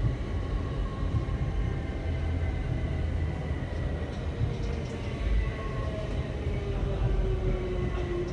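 Electric train heard from inside the carriage: a steady low rumble of wheels on the track, with a motor whine that falls slowly in pitch as the train slows into a station.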